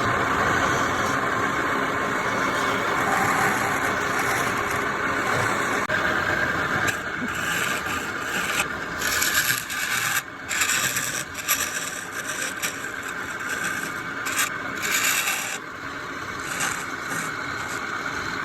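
Wood lathe running as a turning tool scrapes and cuts the spinning wood, a steady machine noise overlaid by irregular hissing scrapes that come and go through the middle stretch.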